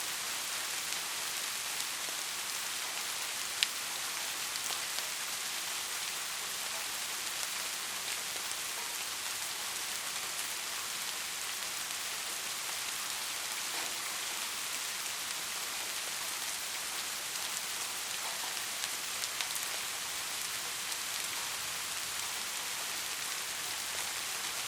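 Soft, steady rain falling, a continuous even hiss with scattered individual drops ticking, one sharper drop about three and a half seconds in.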